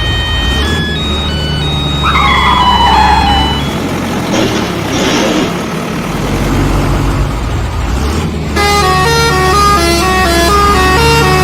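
Upbeat background music with vehicle-like sound effects laid over it, including a falling pitched tone about two seconds in and a noisy stretch after it. The music drops out briefly and comes back louder near the end.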